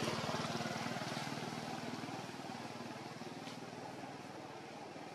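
A motor vehicle's engine running and fading steadily away.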